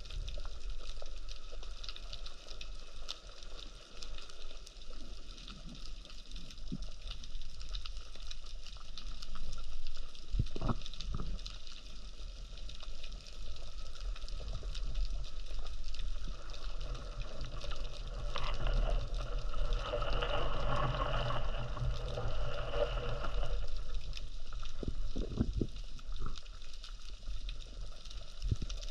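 Underwater ambience picked up by a camera housing on a speargun: a steady low water rumble with a constant fine crackling, a couple of dull thuds about ten seconds in, and a few seconds of louder hissing water noise past the middle.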